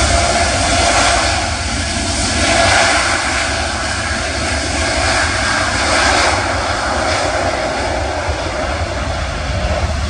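Boeing 787 twin jet engines at takeoff thrust during the takeoff roll: a loud, continuous rushing jet noise that swells and eases slightly a few times. Wind buffets the microphone, adding a ragged low rumble.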